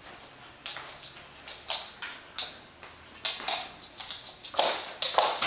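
Lhasa Apso in a plastic cone collar moving about on a hardwood floor and rug: a series of short scrapes and taps, roughly two a second, coming closer together near the end.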